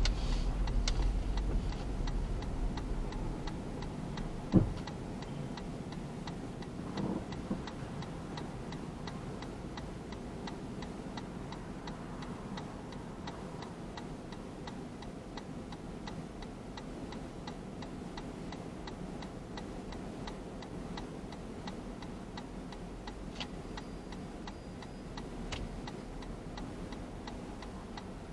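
Car's turn-signal indicator ticking steadily while the car idles at a stop, waiting to turn left. A single knock sounds about four and a half seconds in.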